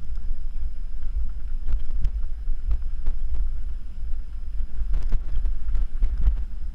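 Wind buffeting the microphone in a steady low rumble, with irregular knocks and rattles from a bicycle jolting over a rough, overgrown grassy track.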